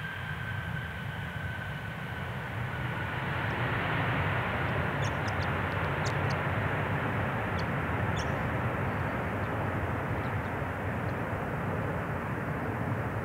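Airbus A340-300's four CFM56 jet engines during the landing rollout: a high steady whine fades out over the first couple of seconds, then a broad rushing roar builds about three or four seconds in and holds, typical of reverse thrust slowing the airliner on the runway.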